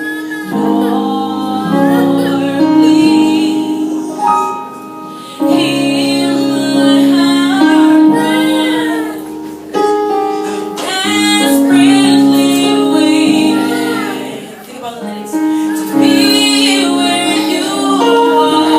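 Live gospel worship song: a woman singing in phrases of a few seconds over held keyboard chords.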